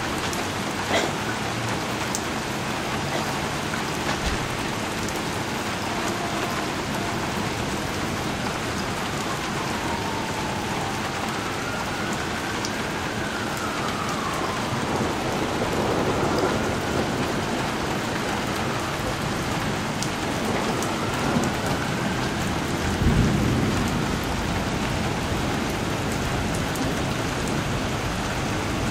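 Heavy rain falling steadily on a flooded street and lawn. Partway through, a faint tone rises and falls several times, and a low rumble swells briefly near the end.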